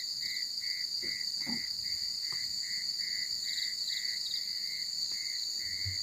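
Night insect chorus: a steady high-pitched buzzing of crickets with a lower chirp repeating about three times a second. A few faint knocks sound about a second and a half in.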